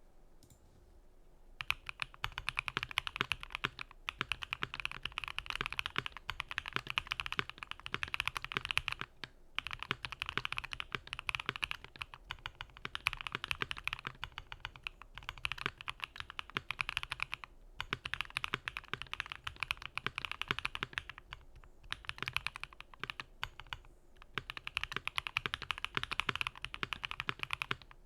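Typing on a Keychron Q1 mechanical keyboard with PE foam, JWK Quartz linear switches and GMK ABS keycaps: fast, continuous key presses. It starts about a second and a half in and pauses briefly a few times.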